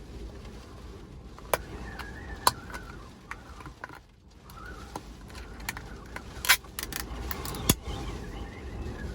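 Steady low rumble of storm wind against a small van, with several sharp metallic clinks of cooking gear being handled inside, the loudest about six and a half seconds in.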